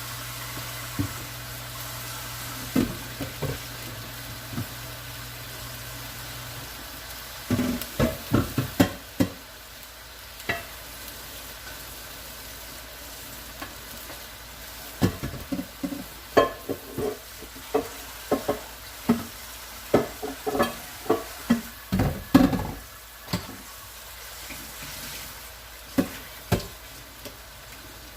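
Beef chuck roast sizzling steadily as it sears in a very hot pan. Over the sizzle come bursts of clunks and knocks from a casserole dish being handled and washed, a cluster about eight seconds in and a longer run in the second half.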